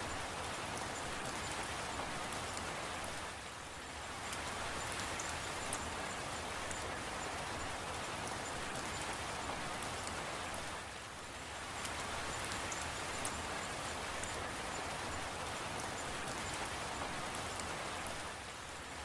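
Steady rain falling, with fine drop ticks scattered through it. It eases briefly three times, about every seven and a half seconds.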